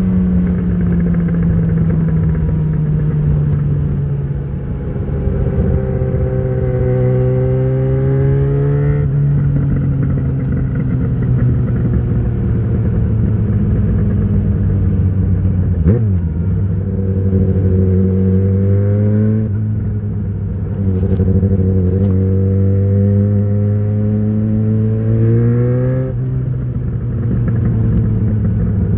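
A 2013 Yamaha XJ6's inline-four engine running through an Ixil full exhaust with the dB killer fitted, ridden on the road. The revs rise several times through the gears and ease off again in between.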